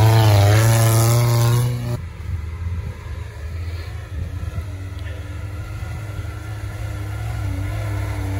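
Off-road 4x4's engine revving hard under load on a hill climb, its pitch wavering. About two seconds in, it changes abruptly to a quieter, steadier engine note.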